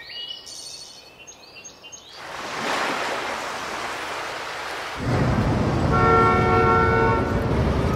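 Example sounds at rising loudness: faint bird chirps, then an even rain-like hiss from about two seconds, then from about five seconds a louder low traffic rumble with a horn sounding near the end.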